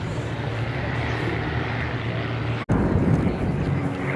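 Zlin 142 light aircraft flying past in formation, their six-cylinder inline piston engines and propellers droning steadily. The sound drops out for an instant a little past halfway and comes straight back.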